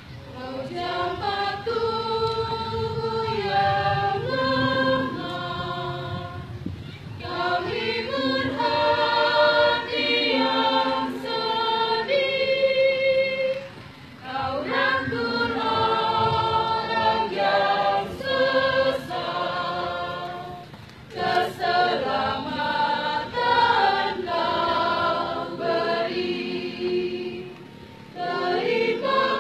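Church choir of men and women singing a hymn together in harmony, in long phrases broken by brief pauses about every seven seconds.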